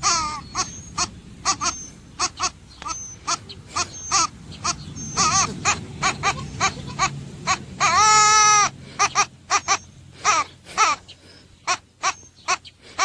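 An animal giving rapid, short, high-pitched cries, about two or three a second, with one longer drawn-out call about eight seconds in.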